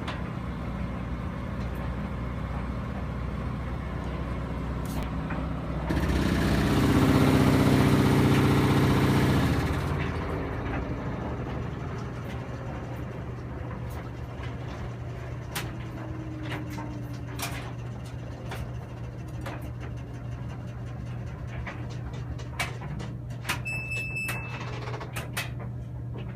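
Samsung WF330ANB front-load washer making a loud noise after its spin cycle: a steady low hum, swelling about six seconds in into a much louder buzzing noise that lasts about four seconds and then fades back to the hum. Scattered clicks follow, with a short beep near the end.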